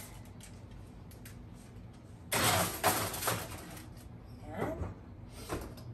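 A foil-covered baking tray slid onto a wire oven rack: a loud metal scrape and rattle lasting about a second, then a few lighter knocks.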